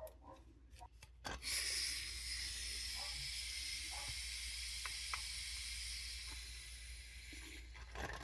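A few handling clicks, then pressurised fuel gas hissing steadily from the fitting being attached to the torch's gas cylinder, fading out near the end.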